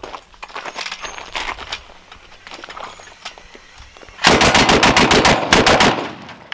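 Loud rapid burst of gunfire from a homemade minigun-style rig firing two mounted rifles at once, starting about four seconds in, lasting under two seconds and stopping abruptly. Before it there are only faint shuffling and clicks.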